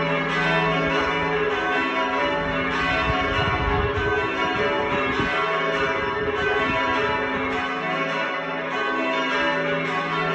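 A heavy ring of six church bells (tenor 18-3-18 cwt in E) being rung down in full-circle change ringing. The overlapping strikes ring together continuously as the swinging bells are brought to rest.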